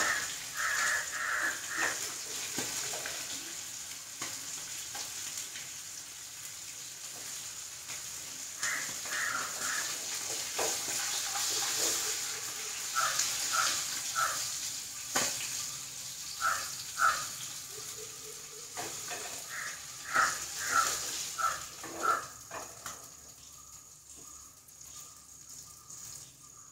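Masala-coated fish shallow-frying in coconut oil in a pan, a steady hiss of sizzling, with a few sharp clinks and scrapes of a metal spatula as the pieces are turned and lifted out. The sizzle dies down near the end.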